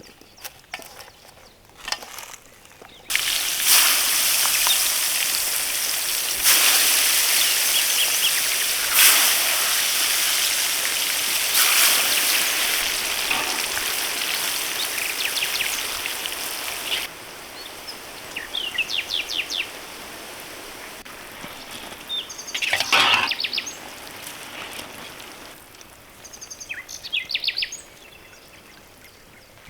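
A loud, steady hissing noise that starts and stops abruptly, then birds chirping in short calls over quieter background noise.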